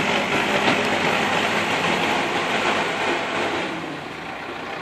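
Backhoe loader's diesel engine running under load while it drives forward with its front bucket pushing soil; the level eases off about three and a half seconds in.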